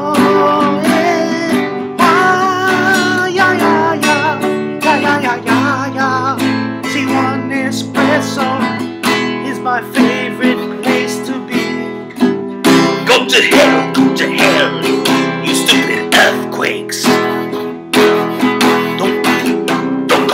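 Acoustic guitar strummed steadily, with a man's voice singing a wordless melody over it for roughly the first eight seconds.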